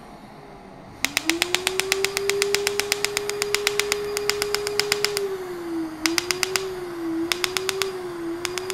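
Asclepion MCL31 Dermablate Er:YAG laser firing fractional pulses on the skin around the lips: rapid sharp clicks about ten a second for some four seconds, then several short runs of clicks, over a tone that wavers in pitch.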